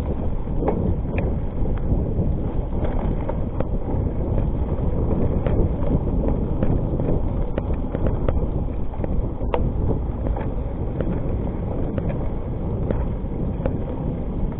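Wind buffeting the microphone and tyres rolling over a dirt trail as a Rockrider ST 520 mountain bike is ridden fast downhill, with frequent irregular clicks and rattles from the bike jolting over bumps.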